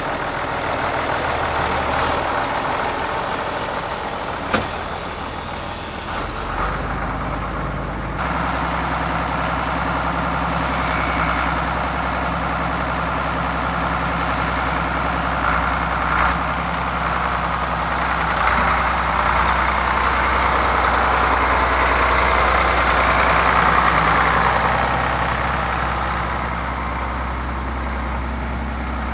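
Farm tractor's engine running as the tractor drives carrying a log on its front fork. The engine note grows stronger a quarter of the way in and is loudest just past two-thirds of the way before easing slightly.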